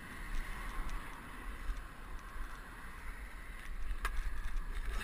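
Wind buffeting the microphone of a moving action camera, over a steady low rumble of travel. A single sharp click about four seconds in.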